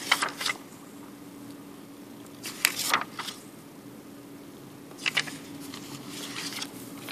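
A paper banknote being handled: short bursts of crisp rustling and crinkling as the note is flipped over and pressed flat, at the start, about three seconds in, and twice more near the end. A steady low hum runs underneath.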